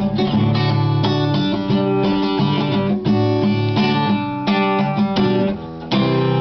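Acoustic guitar strummed in chords between sung lines of a song, with a short lull about five and a half seconds in before a fresh strummed chord.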